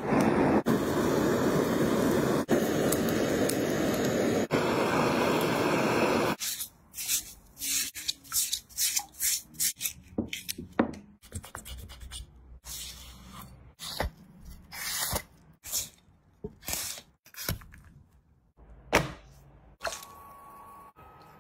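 Handheld blowtorch flame hissing steadily for about six seconds as it singes a pig's trotter, then cutting off suddenly. After it comes a run of short, irregular snips and scrapes as kitchen shears cut into the trotter.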